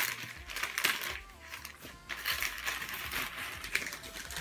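Newspaper gift wrapping and plastic packaging crinkling and rustling in irregular bursts as a present is unwrapped by hand.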